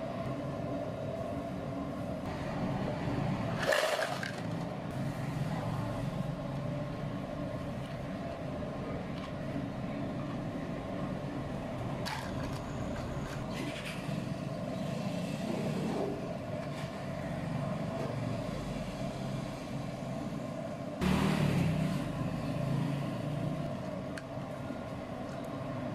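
Steady background hum with a few brief clatters and knocks of plastic cups and ice as drinks are poured and set down on a tiled counter. A louder clatter comes about four seconds in, and a louder stretch comes a little past the twenty-second mark.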